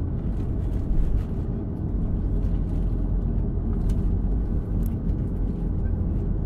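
Cabin noise inside a Boeing 737-300 taxiing after landing: its CFM56 engines at taxi idle give a steady low rumble, with a few faint light ticks from the cabin.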